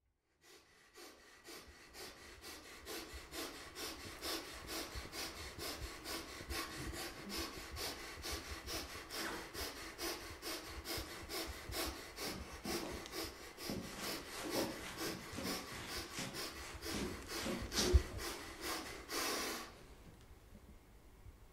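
A person breathing hard and fast through the mouth, quick rasping breaths in a steady, even rhythm, stopping abruptly near the end. A single sharp knock stands out about 18 seconds in.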